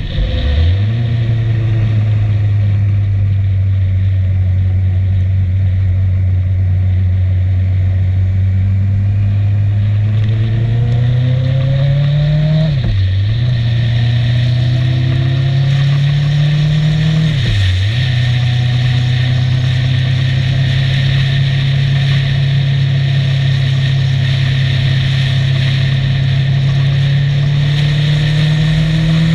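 Motorcycle engine running under way, heard from the bike with wind noise over the microphone. Its pitch sags, then climbs as the bike accelerates, with a brief sharp drop and recovery a third of the way in and again a few seconds later, as with gear changes.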